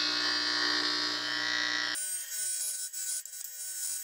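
TIG welding arc buzzing steadily at low current, about 70–75 amps, passed over a crack in an aluminium cylinder head to show whether the crack runs deeper. About two seconds in the sound changes abruptly: the low buzz drops out, leaving a thinner, wavering hiss.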